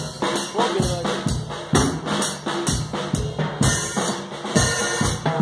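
Acoustic drum kit played live at a steady, fast beat: kick drum, snare and toms under a wash of cymbals.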